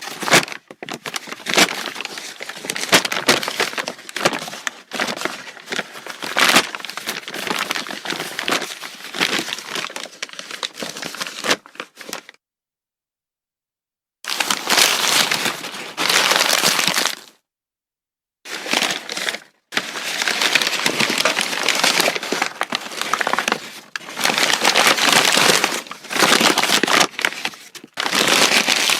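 Brown paper bag being crumpled and handled, a crackling, crinkling rustle that stops twice for a second or two about halfway through.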